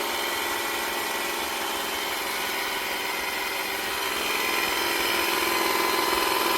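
A motor running steadily with a whirring, mechanical tone, growing slightly louder in the last couple of seconds.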